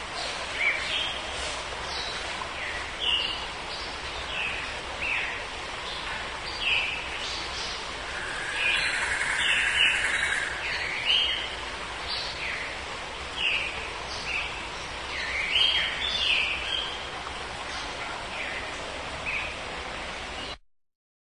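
Birds chirping and singing, many short whistled notes over a steady hiss of outdoor background noise. It cuts off abruptly near the end.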